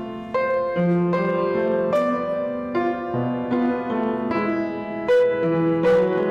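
Solo piano playing a slow, gentle piece, with single notes and chords struck about twice a second.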